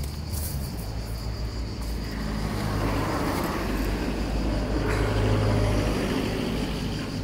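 Road traffic: a motor vehicle passes on the street, growing louder to a peak about five seconds in and then easing, over a steady low traffic hum. A thin, high, steady insect buzz runs underneath.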